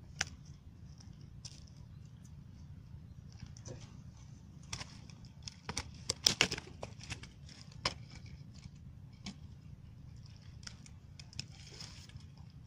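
Irregular crackling, clicking and rustling, densest from about five to eight seconds in, from someone moving and handling a freshly landed fish among dry branches on the bank.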